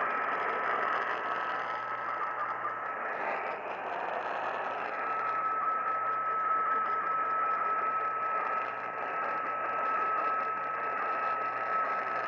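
Static and hiss from an AM radio tuned to a weak, distant station, with a thin steady whistle running through it that grows stronger about five seconds in.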